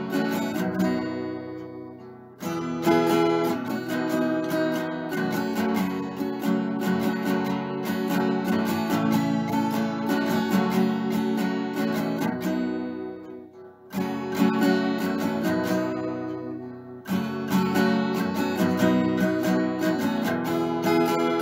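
Background music: acoustic guitar strumming chords. The playing briefly stops to let a chord ring out and fade about two seconds in, again near fourteen seconds and around seventeen seconds, then resumes.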